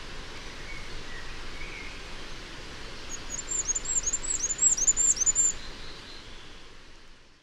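A male firecrest singing: a quick run of about nine thin, very high notes, getting louder as it goes and lasting a couple of seconds, over steady outdoor background hiss that fades out at the end.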